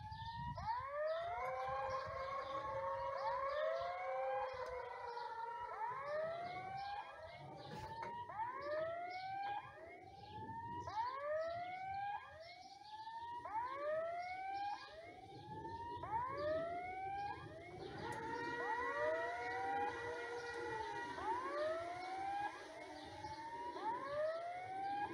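Level-crossing warning sounders: repeated rising electronic whoops from more than one sounder, out of step with each other, well over one whoop a second. A held steady tone joins in twice.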